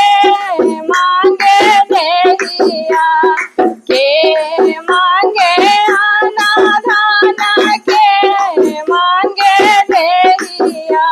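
A woman singing a Bhojpuri devotional bhajan to Shiva, her voice carrying the melody over a steady rhythm of dholak strokes.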